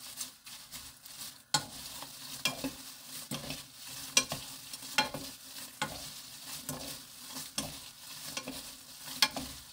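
Two wooden spatulas tossing crisp dried chili peppers in a nonstick frying pan: a dry rattle and scrape of the stiff peppers, with sharp irregular knocks of spatula on pan about once a second. The oil has all been absorbed, so the peppers are browning almost dry.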